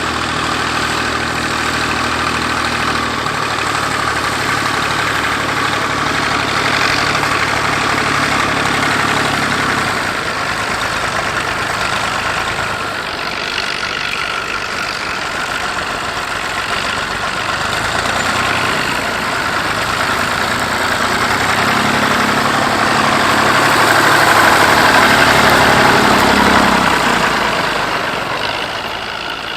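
Massey Ferguson 135 tractor engine running steadily while ploughing. It fades in the middle, then grows louder again and is loudest about three-quarters of the way through before dropping back.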